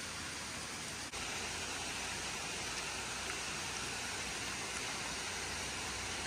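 A steady, even hiss with no distinct events, stepping up slightly in level about a second in.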